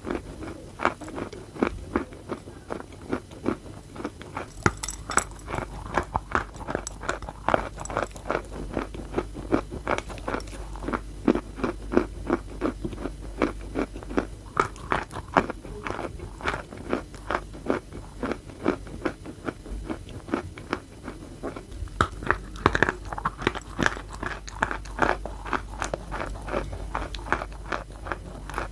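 Close-miked chewing of wet chalk, many quick gritty crunches a second as it is bitten and ground between the teeth.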